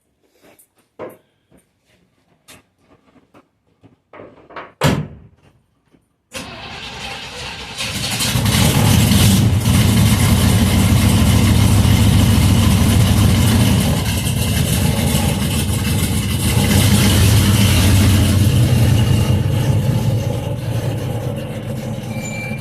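A few clicks and a thump, then the 1968 Chevy II Nova's engine starts about six seconds in and runs loud and steady through its freshly repaired exhaust, with the muffler straightened and the tailpipe hanger refastened.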